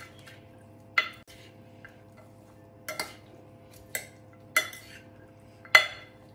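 Metal spoon clinking against a ceramic dish while chopped salad is tossed and mixed: five sharp clinks at uneven intervals, the last, about six seconds in, the loudest.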